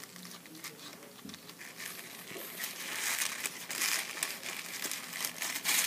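Aluminium foil wrapper crinkling as it is handled and peeled back from food, a series of irregular crackles that grow louder about halfway in.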